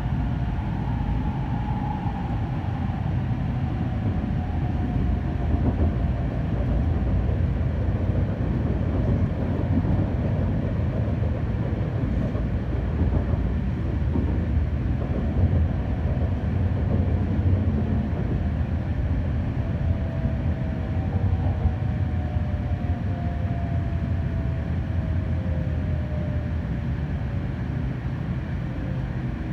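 Running sound inside an N700-series 8000 Shinkansen car: a steady low rumble from the wheels and track, with the traction motors' whine falling slowly in pitch as the train slows for a station stop.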